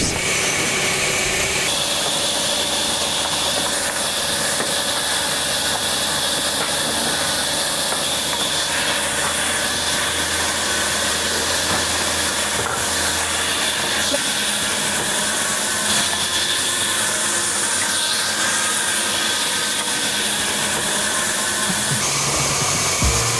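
Vertical band saw running and cutting wooden planks: a loud, steady noise of the blade through the wood with motor hum underneath. The sound shifts abruptly about 2 s and 9 s in and again near the end.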